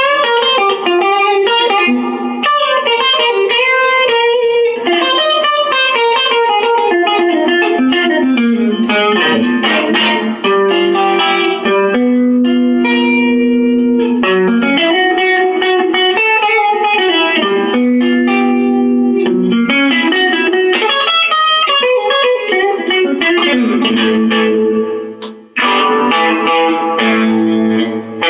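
Guttlin Baronet Doublet electric guitar, a handmade all-mahogany neck-through with Guttlin BarBar Cigar pickups, played amplified. It plays melodic single-note lines and some held chords, with a short break about 25 seconds in.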